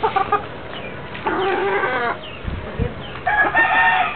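Rooster crowing twice, about two seconds apart, each crow just under a second long, the second higher-pitched.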